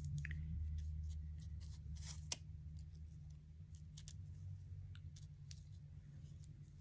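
Faint rustling and light taps of die-cut cardstock pieces being slid and pressed into place by fingers on a card panel, over a steady low hum. The sharpest tap comes a little past two seconds in.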